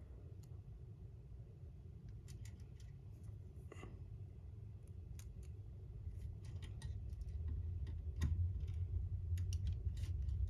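Scattered small clicks and scrapes of a screwdriver working small screws and plastic model-kit parts, getting a little busier in the second half, over a low steady hum.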